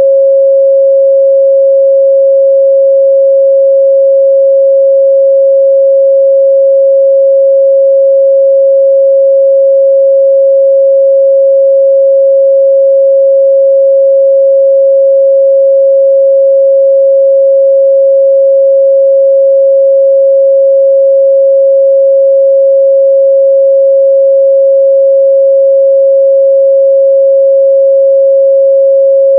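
A continuous, steady 545 Hz pure sine-wave test tone, loud and unchanging in pitch and level, with no other sound.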